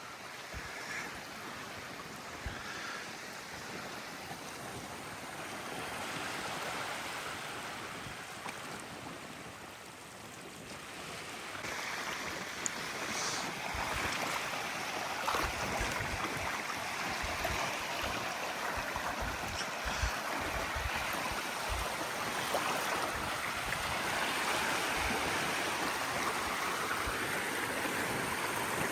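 Sea surf washing on the beach as a steady hiss, which grows louder about a third of the way through. From then on, gusts of wind buffet the microphone.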